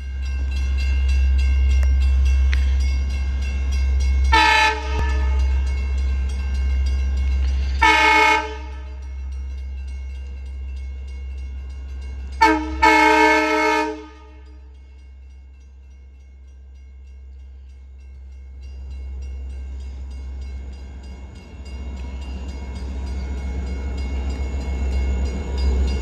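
Horn of an approaching LIRR diesel push-pull train, a bilevel cab car leading, sounding two long blasts, a short one and a final longer blast: the grade-crossing signal. Under the horn is a low rumble of the train that quietens after the last blast and grows louder again near the end as the train draws in.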